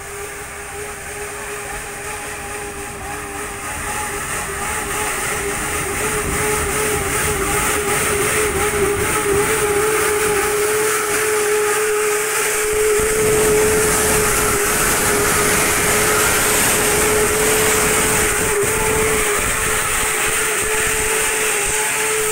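Heavy dump truck's diesel engine running with a steady whining drone. It grows louder over the first half as the truck comes close and passes alongside.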